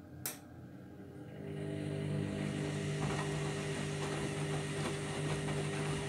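Candy Grand'O Vita washing machine: a click, then the drum motor starting to turn the heavy, sudsy load, its hum building over about a second and then running steadily.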